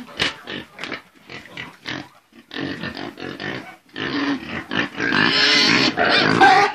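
A group of piglets grunting, with short separate grunts at first, then louder continuous squealing from about four seconds in.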